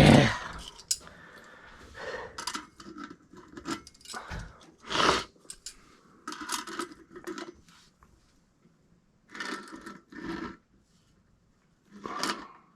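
Intermittent clatter, knocks and scrapes of tools and parts being handled during sink plumbing work, with the loudest knock right at the start and another strong one about five seconds in.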